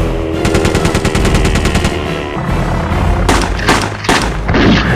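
A rapid burst of machine-gun fire lasting about a second and a half, then, after a short gap, three single gunshots about half a second apart: film sound effects laid over background music.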